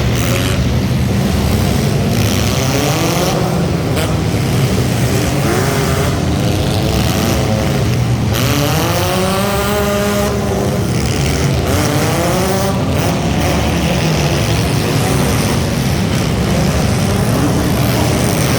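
Several front-wheel-drive hobby stock race cars racing, engines running hard over a steady din. Several cars rev up and fall off in pitch as they pass, most clearly about halfway through.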